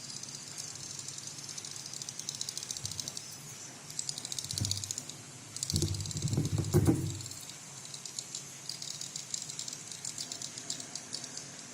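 A lure call: a high, rapid pulsing trill that comes and goes, broken by a louder low rumbling burst about six to seven seconds in.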